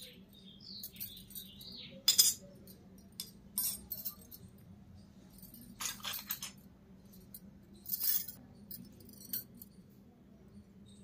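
Miniature stainless steel toy utensils clinking as they are handled and set down on a concrete floor among other small steel pieces: a handful of separate sharp metallic clinks with a brief ring. The loudest come about two seconds in and around six and eight seconds in.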